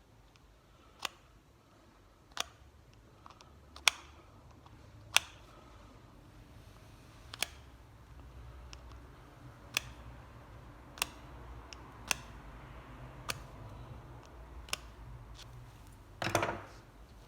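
Sharp clicks from a small hand tool, about one every second or so, then a short scrape near the end: clearing conductive bridges out from between the commutator bars of a burnt starter armature.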